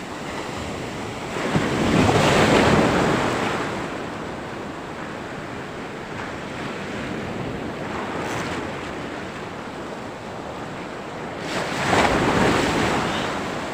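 Rough sea surf washing in and breaking, with two louder surges of a wave, one about two seconds in and another near the end, over a steady rush of water and wind on the microphone.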